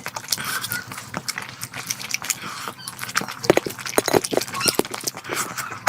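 Close-miked mukbang eating sounds: rapid, irregular smacks and clicks of chewing and mouth noises.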